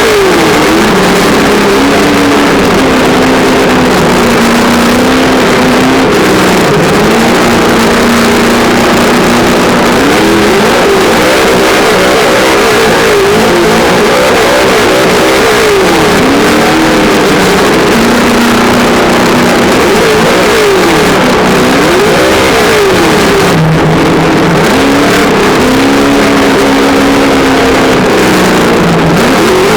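Traxxas Slash RC truck's On Board Audio speaker playing a loud simulated engine sound. Its pitch rises and falls again and again, with steady held stretches between the revs.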